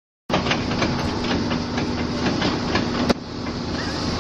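A running vehicle with a steady hum and regular clacks about four times a second, like a rail vehicle. A sharp bang comes about three seconds in, and after it the sound is quieter.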